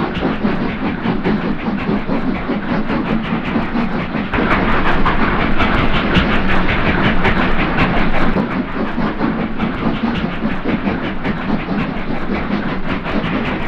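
Steam locomotives working hard on a climb, a rapid run of overlapping exhaust beats that swells louder for a few seconds in the middle.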